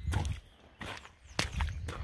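Footsteps in wet mud and shallow floodwater: about four short steps.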